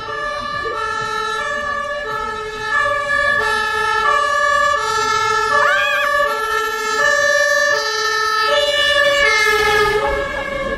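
Emergency vehicle's two-tone siren sounding on a city street, alternating steadily between a low and a high note and getting louder about three seconds in.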